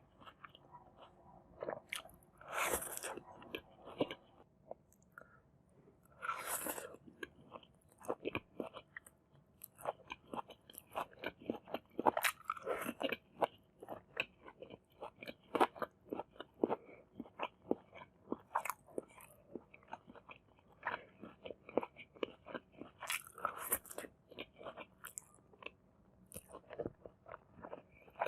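Close-miked mouth sounds of a person eating Maggi masala noodles with egg, tomato and cucumber: chewing and biting heard as a quick, uneven run of wet clicks and smacks, with two longer, noisier sounds about three and six and a half seconds in.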